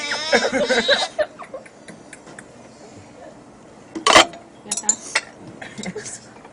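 A baby's high, wavering squeal that carries into the first second and breaks off, followed by scattered clinks and one sharp clatter about four seconds in, like a spoon or dish knocking.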